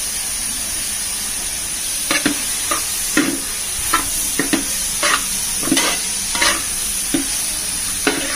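Onions frying in coconut oil in a large metal pot: a steady sizzle, with a run of short scrapes and knocks against the pot from about two seconds in, roughly two a second.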